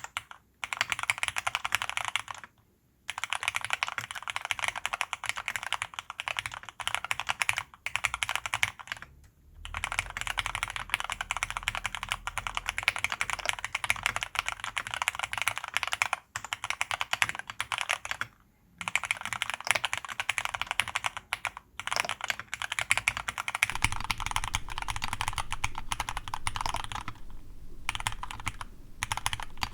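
Fast, continuous typing on a TX66 aluminium custom mechanical keyboard with lubed Cherry MX Black linear switches and PBT keycaps, broken by a few short pauses.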